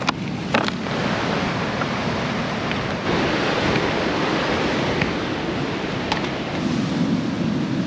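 Steady rush of ocean surf on the shore, with wind buffeting the microphone.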